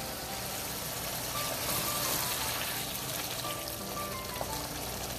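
Taro leaves simmering and sizzling in the pan in the water they have released, stirred lightly with a wooden spatula, over soft background music.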